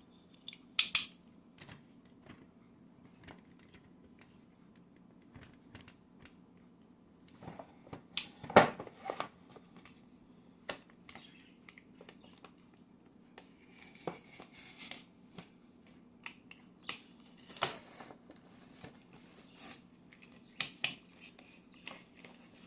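Scattered clicks, scrapes and scratchy cutting noises as a knife slices the tape on a toy's cardboard and plastic box and the box is handled, with the loudest knock about eight and a half seconds in.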